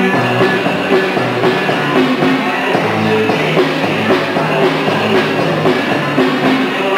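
Square-dance music from a band with guitar, playing a steady dance beat.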